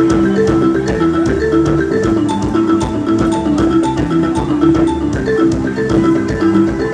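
Live band playing an instrumental passage: a drum kit keeping a steady beat with cymbal hits under a quick line of short, bright pitched notes.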